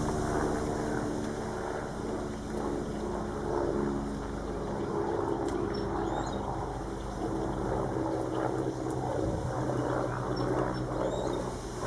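Steady engine drone made of several low tones that shift slowly in pitch.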